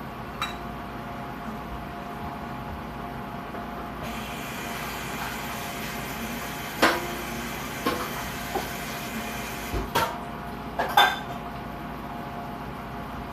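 A few sharp clinks and knocks of kitchenware, about five spread over the second half, one ringing briefly, over a steady background noise.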